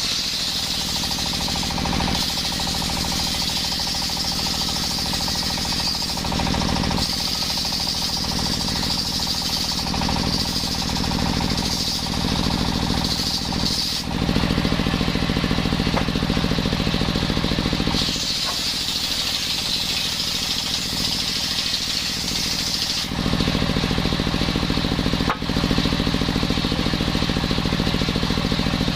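Engine-driven circular saw running steadily, its blade cutting through coconut wood in stretches of several seconds: a high hiss rises over the engine while the blade is in the wood and drops away between cuts.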